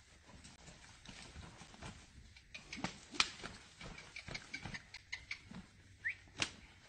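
Mules' hooves moving through mud and leaf litter, heard as scattered faint knocks and clicks that grow busier partway through. A short rising chirp comes near the end.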